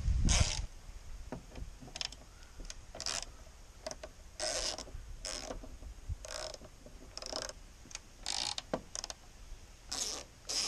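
Hand ratchet with a T40 Torx bit backing out a body-panel bolt: a short burst of pawl clicking on each back-swing, about a dozen strokes at roughly one a second.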